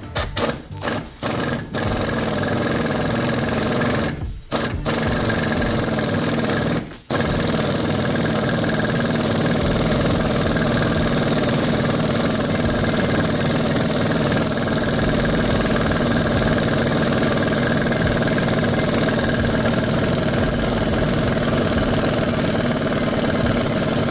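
Impact wrench turning the forcing screw of a pulley puller to draw the pulley off a power steering pump. It gives several short bursts, then runs on steadily from about seven seconds in.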